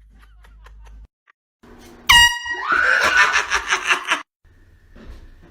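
A handheld air horn blasts suddenly about two seconds in, a short loud honk, and gives way at once to a person's startled scream that lasts over a second.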